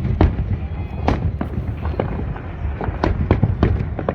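Fireworks display going off: a rapid, irregular series of sharp bangs and cracks, about a dozen in four seconds, over a continuous low rumble.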